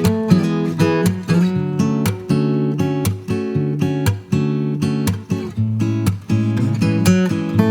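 Background music: acoustic guitar strumming and picking a steady, bright melody.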